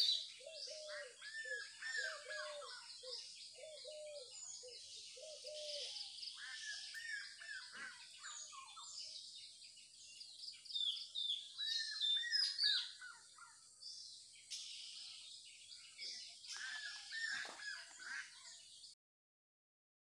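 Many songbirds chirping and calling over one another in a dense chorus of quick high notes. In the first six seconds a lower call repeats about twice a second beneath them. The sound cuts off suddenly about a second before the end.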